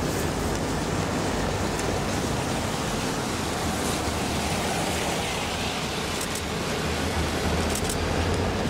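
Steady, rain-like hiss over a low rumble from EMD diesel locomotives moving slowly. The rumble grows a little stronger about halfway through, and a few light ticks come near the end.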